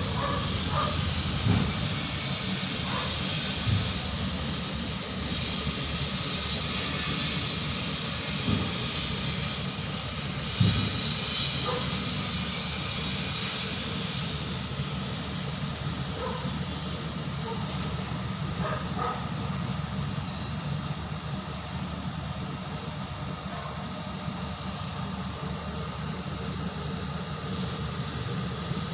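A steady low mechanical hum with a hiss over it through roughly the first half, then the hiss dropping away, and a few short knocks scattered through it.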